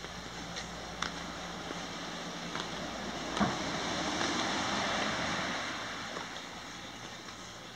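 Surf washing in below, a wave swelling and then fading in the middle, over a steady rushing wash. Light scattered footsteps on a stone path, with one sharper knock about three and a half seconds in.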